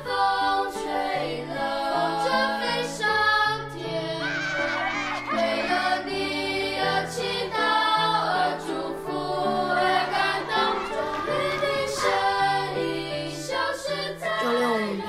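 Music with a choir singing, over sustained low notes that change every second or so.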